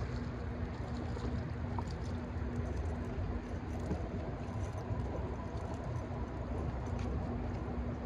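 Steady low rumbling noise of the river around a boat, with a steady low hum through it that weakens for a couple of seconds in the middle, and a few faint light ticks.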